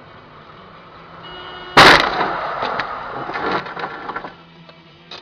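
Car collision heard through a dashcam's microphone: a sudden loud crash about two seconds in, then a couple of seconds of clattering and scraping as bumper and body parts break off and scatter, dying away before the end.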